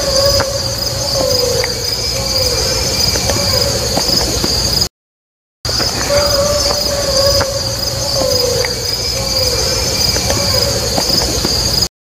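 Crickets and other insects chirring steadily in a high chorus. Over them, an unidentified mid-pitched tone holds, then breaks into about three short downward-sliding notes. The recording is strongly amplified, with a low rumbling hiss; it cuts to silence briefly a little before halfway and then repeats.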